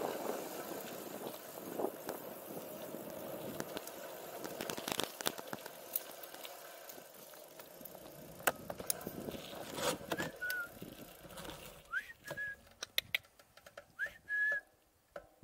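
A bicycle rolling along a country road, with tyre and wind noise. From about ten seconds in, as the riding noise drops away, a person whistles several short high notes to call a donkey, among a few sharp clicks.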